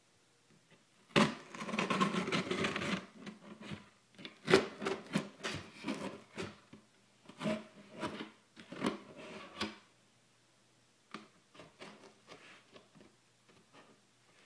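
Scissors cutting and scraping through packing tape on a cardboard box, with the cardboard rubbing and knocking as it is handled. A long scrape about a second in, then a run of shorter scrapes and knocks, and fainter clicks near the end.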